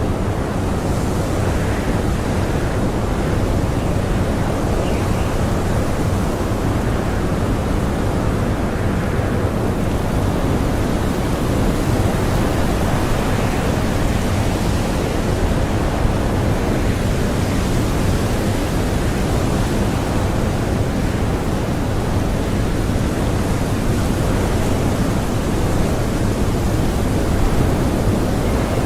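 Strong blizzard wind blowing as a steady, dense noise that swells a little now and then.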